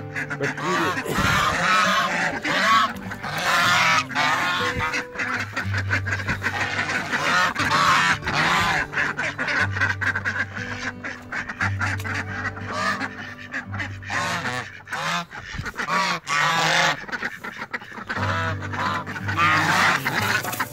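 A flock of domestic geese honking over and over, the calls overlapping without a break, as they crowd around a feed bowl and eat.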